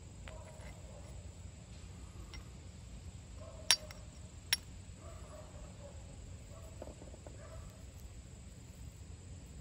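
Steel striker scraped hard against a flint twice, less than a second apart: two sharp clicks, striking sparks onto charred punk wood to light it.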